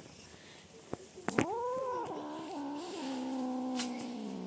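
Kitten growling over a fish it is guarding: one long, drawn-out warning yowl that starts about a second in, wavers at first, then levels off for about three seconds.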